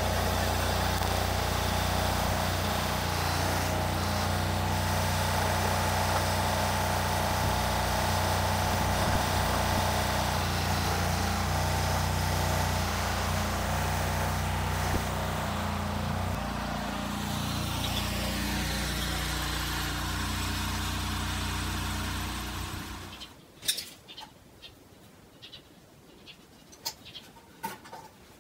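Small engine of a walk-behind tractor idling steadily. It cuts off abruptly about three-quarters of the way through, leaving a quiet room with a few sharp light clicks and taps.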